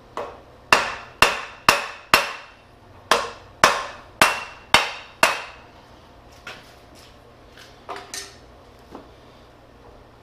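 Sharp metallic knocks with a brief ring, about two a second in two runs of five, then a few lighter knocks. The piston rod is being rammed by hand to force the freshly sealed piston into the hydraulic cylinder barrel against the tight seal.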